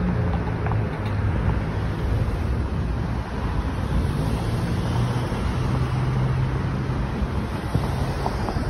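City street traffic: cars and SUVs driving past with engine hum and tyre noise, under steady wind rumble on the microphone.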